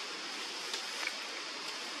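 Steady outdoor background hiss, with two faint clicks about a second in.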